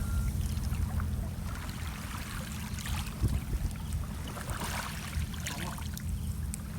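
Water splashing and sloshing over a steady low rumble, with scattered small knocks.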